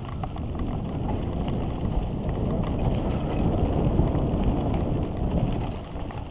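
Wind rushing over an action camera's microphone and mountain bike tyres rolling over a dusty dirt trail during a fast descent. The rush swells through the middle and eases near the end.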